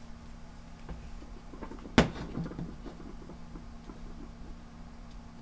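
Plastic shell of a laptop battery pack being pried apart by hand: one sharp crack about two seconds in as the casing pops open, followed by a short run of small plastic clicks and rattles.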